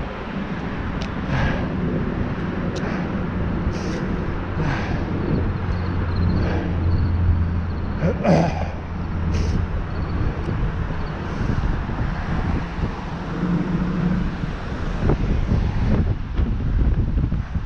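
Wind rumbling on the microphone and tyre noise of a fixed-gear bicycle rolling along a path, with the rider's heavy breaths coming about every second or so.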